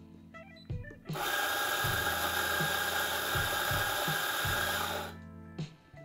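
Fiorenzato F64XGI commercial espresso grinder's motor and flat burrs grinding a single dose by weight into a portafilter. The grinding starts about a second in, runs steadily with a whine for about four seconds, and stops on its own when the dose weight is reached.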